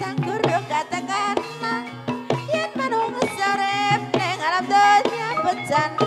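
Live Javanese gamelan music accompanying an ebeg hobby-horse dance: hand-drum strokes and struck metal tones in a steady rhythm, with a high wavering melody line over them.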